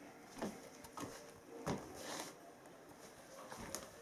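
Soft footsteps on a wooden floor, a few separate steps spaced about half a second to a second apart, in a small room.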